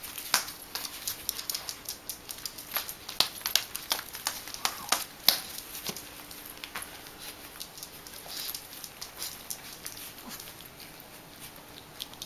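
Small dog's shoes tapping and clicking irregularly on a hard floor as it takes awkward steps. The taps come thick and fast at first and thin out after about six seconds, when the dog gets into its bed.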